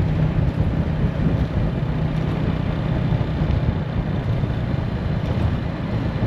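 Motorcycle engine running steadily at riding speed, a low hum mixed with rushing wind and road noise.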